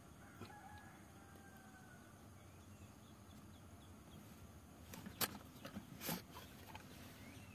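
Mostly faint background, with a few thin bird calls in the first half. Then a handful of sharp clicks and knocks come about five to six seconds in, from pliers and fuel-pump parts being handled.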